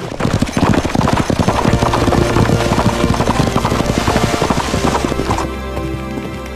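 Horses' hooves clip-clopping quickly, several horses being ridden, over background music. Near the end the hoofbeats drop back and the music comes forward.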